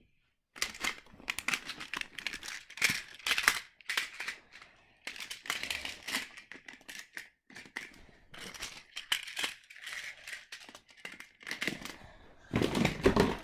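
Plastic magnetic building tiles clicking and clattering as loose pieces are handled and dropped into a built structure, in irregular bursts with a louder clatter near the end.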